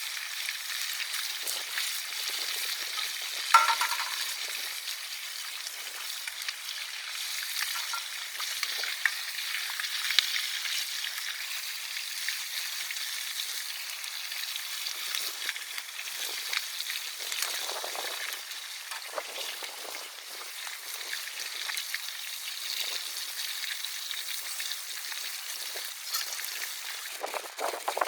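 Fish frying in hot oil in a pan: a steady sizzle with small crackles throughout. A sharp knock with a brief ring comes about three and a half seconds in.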